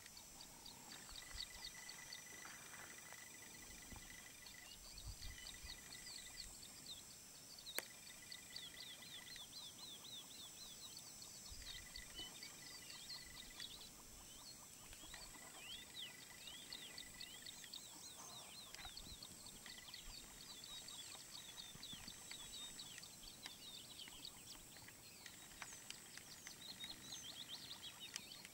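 Faint bush ambience of many small birds chirping in quick, overlapping downward chirps, over a steady high whine and an on-and-off high steady tone. One sharp click about eight seconds in.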